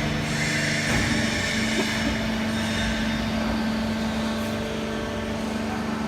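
Mobile horizontal baler running: a steady machine hum with a constant low tone and no distinct strokes.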